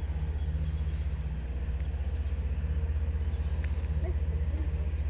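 Boat motor running steadily with a low, fast, even throb, a few faint ticks over it near the end.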